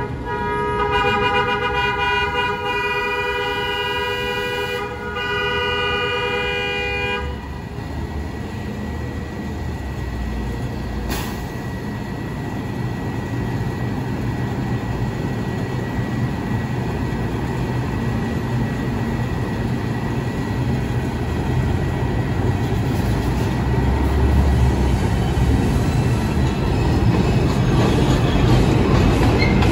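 An R142 subway train's horn sounds two blasts, a long one and then a shorter one. The rumble of the train then builds, growing steadily louder as it approaches.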